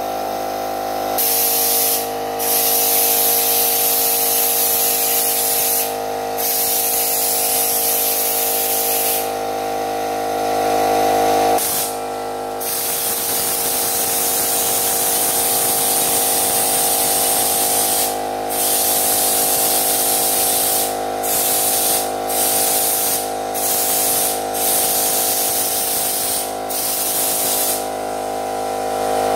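Compressed-air spray gun spraying bedliner coating in long bursts, broken by about a dozen short pauses as the trigger is let off. A steady hum sounds underneath.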